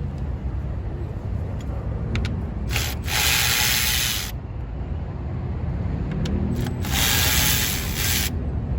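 Steady low rumble of outdoor background noise, with a few small clicks and two loud hissing bursts of about a second and a half each, around three seconds in and again around seven seconds in.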